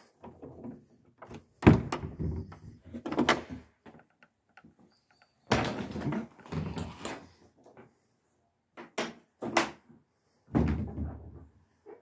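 Church door being opened and shut: a series of loud clunks and knocks, the loudest about two seconds in.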